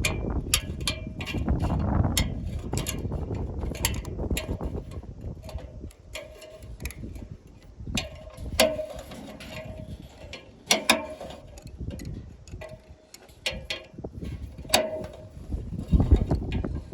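Irregular metallic clicks and clinks of hand tools on metal, each with a short ring. Wind rumbles on the microphone at the start and again near the end.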